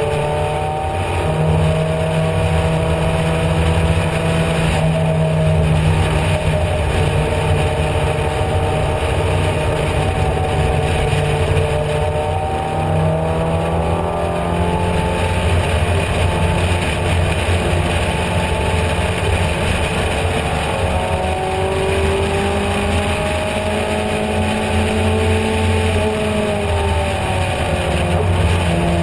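Race car engine heard from on board, running hard at high revs under full throttle, its pitch drifting slowly up and down with speed, with a steady wind rush over the open cockpit.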